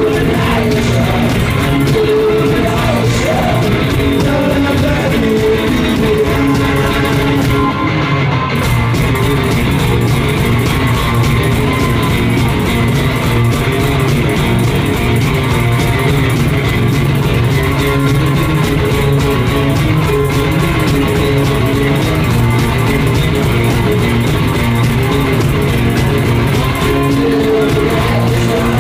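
Live garage-rock music from a two-piece band, both members playing guitar, loud and continuous.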